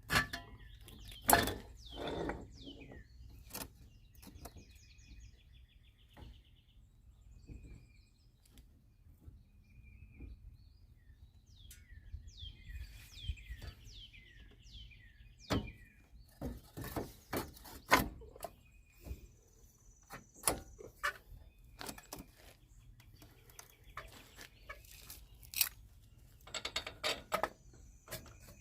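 Scattered sharp metal clinks and knocks from hand tools and parts being worked on a truck's wheel hub, with a quick run of clicks near the end. Songbirds chirp and trill in between.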